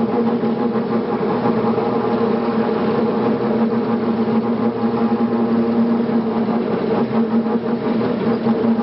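Farm tractor engine running steadily at an even speed, a constant drone with no change in pitch.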